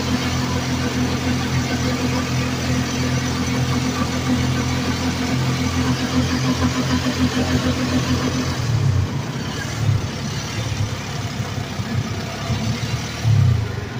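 Engine of a moving vehicle running steadily, heard from inside the cab with road and wind noise. Its even engine note drops away about two-thirds through, and a few short low swells follow.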